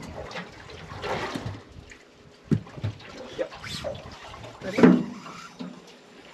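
Water splashing and lapping around a small fishing boat, with a sharp knock about two and a half seconds in and a louder burst of splashing near five seconds.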